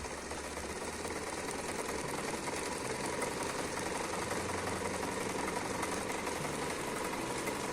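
Pfaff 1040 household sewing machine running steadily, stitching a zigzag seam.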